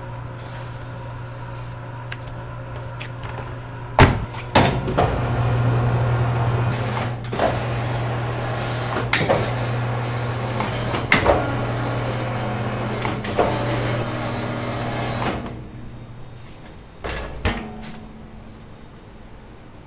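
A motor hums steadily, growing louder a few seconds in and stopping near the end, while sharp knocks and clatter of kitchen work sound every couple of seconds.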